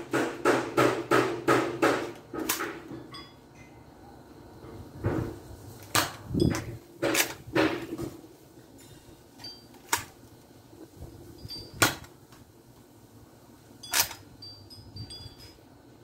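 Plastic clicks and snaps from a Nerf Sharpfire dart blaster as it is primed and fired. A quick run of about ten clicks comes in the first two and a half seconds. After that come single sharp clacks a second or more apart, with a duller thump about six and a half seconds in.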